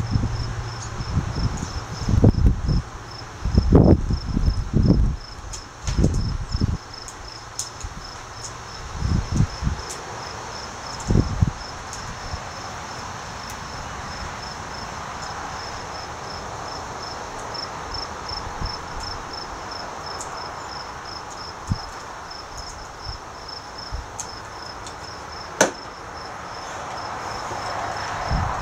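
Insects chirping in a steady, high-pitched run of evenly spaced pulses. Low thumps and bumps come in the first dozen seconds, and there is a single sharp crack about twenty-six seconds in.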